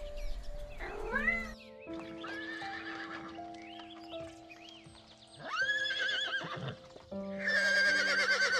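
A horse whinnying three times, each a wavering, quivering call, the last and loudest near the end. Calm music with long held notes plays underneath, and a short kitten meow comes about a second in.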